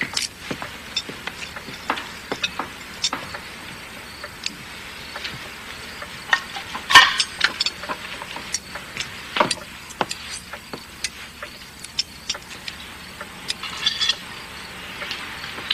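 Knife and carving fork clinking and scraping against a serving platter and plates as a roast is carved and served: scattered sharp clinks, the loudest about seven seconds in.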